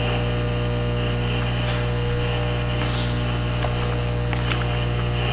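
Steady electrical hum, a low drone with a few steady tones above it, and a couple of faint ticks about halfway through.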